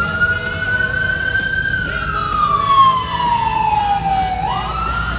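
Electronic siren on a fire apparatus sounding a wail: the pitch holds high, falls slowly for about three seconds, then climbs again near the end.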